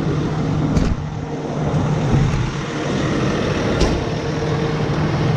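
A fire truck's diesel engine idling with the fire pump engaged through the PTO: a steady hum. Two sharp knocks, about a second in and near four seconds, come as the operator gets out of the cab.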